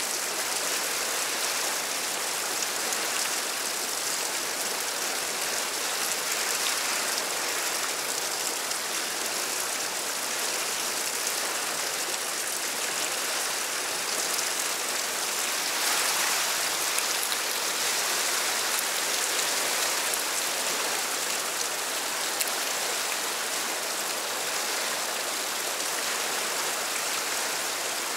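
Fast-flowing river water rushing and churning in white-water rapids over rocks: a steady rush of water, a little louder about halfway through.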